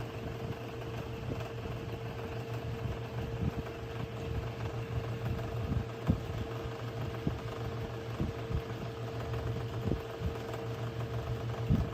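Airbition 8-inch electric wall-mount fan running: a steady motor hum with a held mid-pitched tone, and occasional short low thumps.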